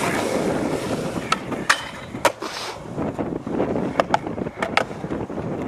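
Skateboard wheels rolling on concrete, with several sharp clacks of the board and trucks striking the ground or an obstacle, and wind on the microphone.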